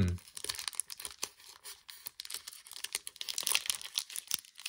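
Foil wrapper of a Pokémon TCG booster pack crinkling and tearing as it is opened by hand, a run of irregular soft crackles that is busiest about three seconds in.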